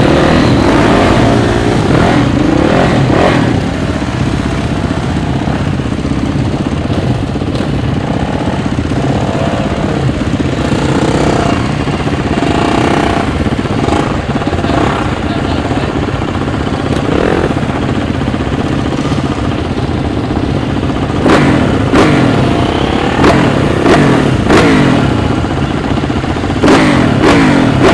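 Motocross bike engines revving on the track, pitch rising and falling with the throttle, growing louder with sharp surges about two-thirds of the way in.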